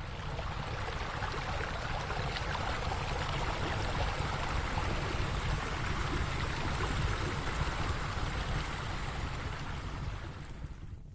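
Steady rush of running water, as from pool fountains and spillways, fading out near the end.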